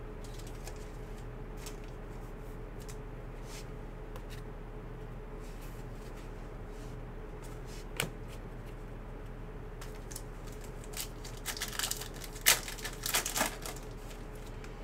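Foil trading-card pack torn open and crinkled by hand, a short spell of crackling a little over two-thirds of the way in, after a stretch of faint steady hum. A single sharp click comes somewhat earlier.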